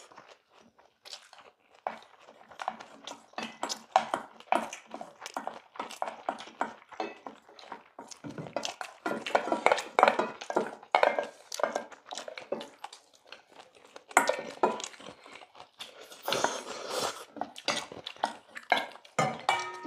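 Metal spoons and chopsticks scraping and clinking in stainless steel bowls, mixed with chewing, as the last of the rice is scraped out of the nearly empty bowls.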